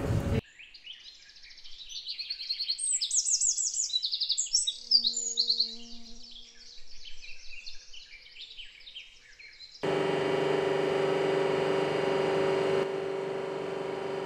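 A songbird singing a fast, varied run of chirps and trills. About ten seconds in it cuts abruptly to a steady mechanical hum.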